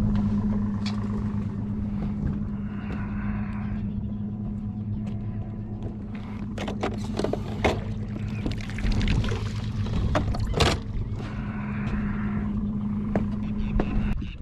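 Boat motor running steadily with a low, even hum, and a few sharp knocks about halfway through; the hum cuts off suddenly near the end.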